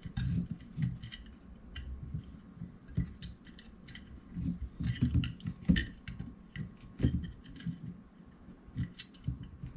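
Bare copper ground wires being gathered and lined up by hand in a metal electrical junction box: scattered light clicks and taps of wire against the box, with soft rubbing and handling thumps.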